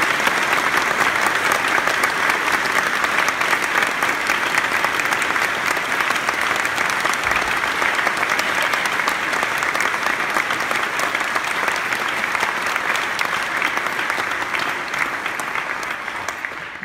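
Concert audience applauding steadily after a choral piece: dense clapping with no break.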